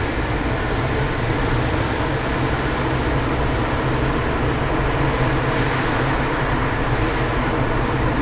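Steady in-cabin driving noise of a moving car: a low engine hum with tyre and road rumble, even throughout.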